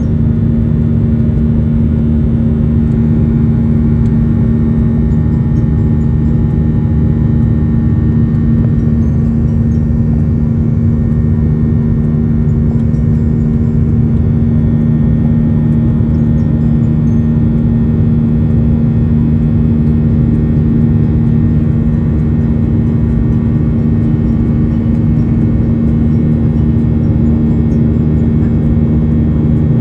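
Airliner's jet engines heard inside the passenger cabin: a steady, loud drone with a low hum, no change in pitch.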